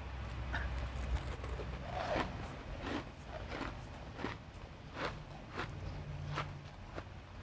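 Refrozen crushed ice being chewed, with a run of short, sharp crunches about one every half second to second.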